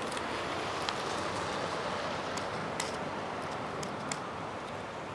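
Steady outdoor background hiss of wind and distant surroundings, with a few faint clicks scattered through it.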